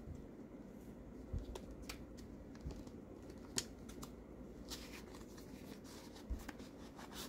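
Faint handling noise: a few scattered soft taps and scrapes as fingers grip a cardboard sleeve and slide it off a metal knife tin, over a low steady room hum.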